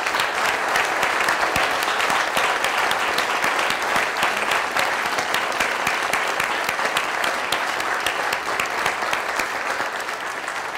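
An audience applauding: many hands clapping in a dense, steady round that eases off a little near the end.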